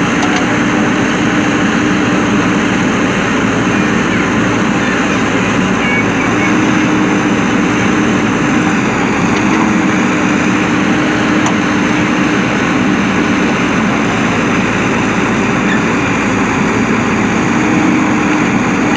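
JCB backhoe loader's diesel engine running steadily: a constant, unchanging drone with one steady hum.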